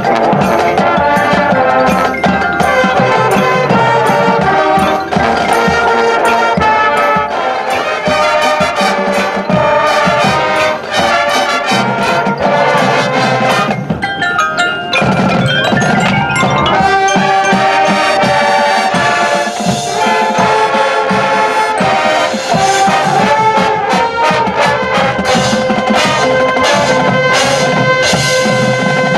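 Marching band playing: brass horn line over keyboard percussion (marimba, xylophone, glockenspiel) and drums, with steady rhythmic strikes throughout.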